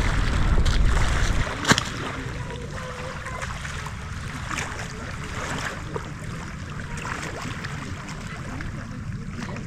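Wind and water ambience by the sea: a low wind rumble for the first second and a half, then a quieter hiss of wind and water with scattered small splashes or ticks.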